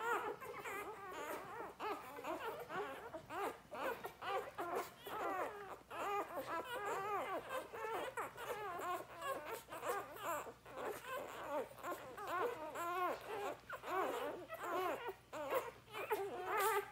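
Litter of four-day-old Labrador retriever puppies nursing, with a constant overlapping chorus of short high squeaks and whimpers as they suckle and jostle at their mother's teats. The pups are very hungry: a feeding frenzy.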